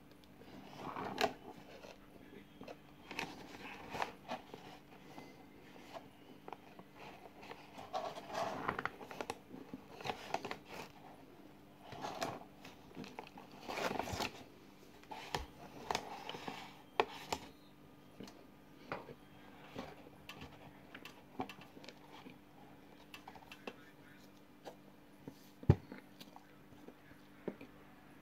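Mouth noises of eating dry cornflour through a straw: irregular soft crunching and chewing, busy in the first half and sparser later, with one sharp click near the end.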